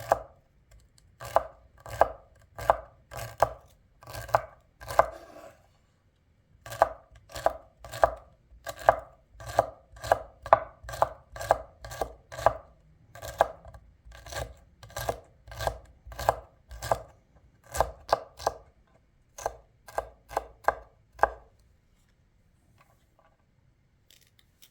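Knife chopping ingredients on a cutting board in steady strokes, about two a second, with a brief pause early on and the chopping stopping a few seconds before the end.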